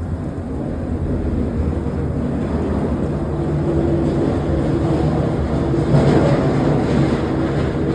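Subway train rumbling at the platform, a steady low roar that grows louder and is loudest about six seconds in.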